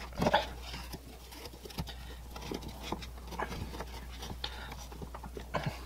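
Light, scattered clicks and scrapes of a plastic supply-line coupling nut being hand-threaded onto the plastic shank of a toilet fill valve beneath the tank.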